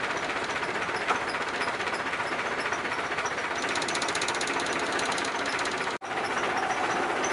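Longtail canal boat engine running steadily, with a fast ticking rattle for about a second and a half midway. The sound drops out for an instant about six seconds in, then carries on at the same level.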